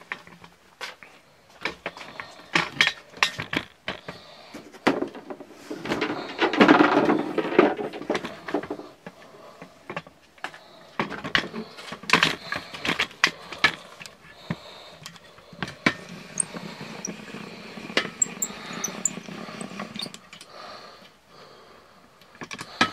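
Camera handling noise: scattered clicks and knocks, with the rustle of a cotton shirt rubbing over the microphone as the camera is carried, loudest about six to eight seconds in.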